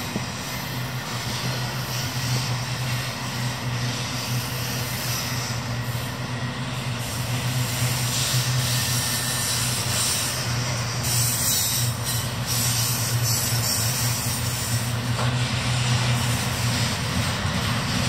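Double-stack intermodal freight train rolling past, its container well cars making a steady rumble of wheels on rail over a low hum. It grows a little louder about halfway through.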